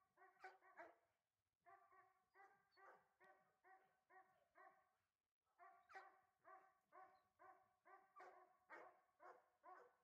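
A dog barking over and over at a steady pitch, about three barks a second, with two short breaks. It sounds faint.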